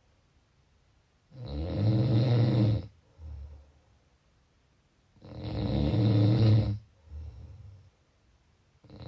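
A person snoring: two loud snores about four seconds apart, each followed by a quieter, shorter breath.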